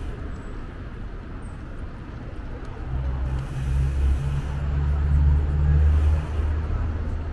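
Street traffic noise with a deep low rumble that swells from about three seconds in and eases near the end, like a vehicle passing.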